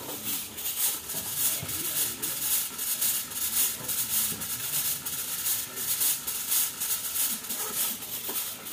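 Handheld fog machine hissing in quick, even pulses, several a second, as it puffs out stage smoke.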